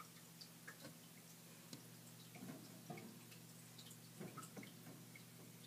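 Near silence: a faint steady hum with scattered soft ticks and clicks.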